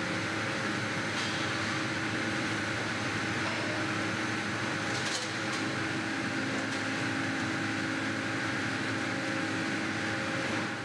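Steady factory machinery noise from an aluminum billet-handling line, an even drone with a few constant hum tones and a light knock about halfway through. It cuts off suddenly at the end.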